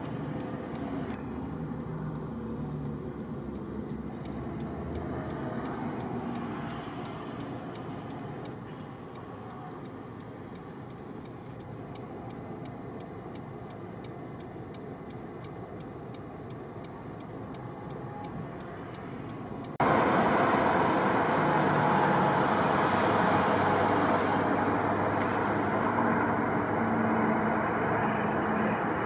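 Steady roadway traffic noise, with a fast, even ticking about twice a second over it. About two-thirds of the way in, the traffic noise suddenly gets much louder and the ticking stops.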